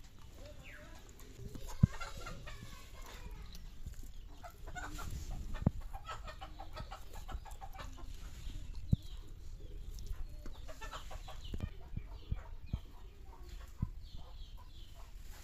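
Domestic chickens clucking repeatedly, with a few sharp clicks scattered through, the loudest about two, five and nine seconds in.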